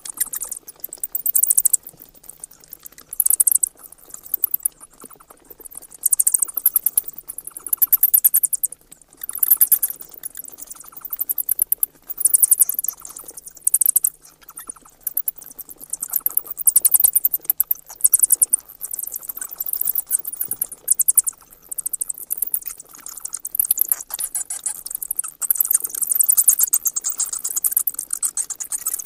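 Bats chattering: runs of rapid, high-pitched clicking squeaks, coming in bursts of a second or two with short gaps between.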